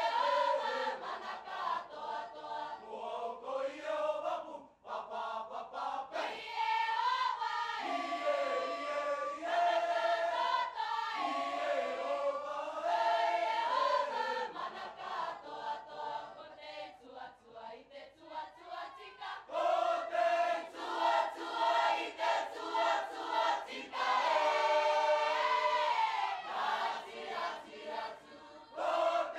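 A Cook Islands choir of mixed male and female voices singing together in parts. The singing thins out about halfway through and swells again soon after.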